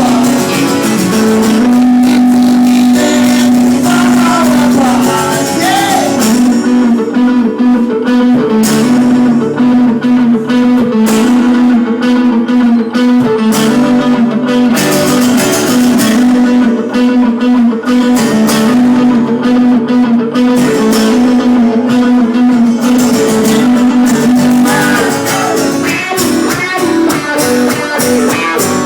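Live band playing a guitar-led instrumental break between sung verses, with guitar lines over a steady beat from a few seconds in.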